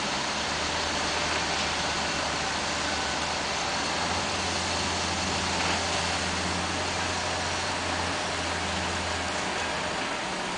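Heavy construction machine's engine running with a steady low drone that grows stronger about four seconds in and drops away near the end, over a constant rushing noise.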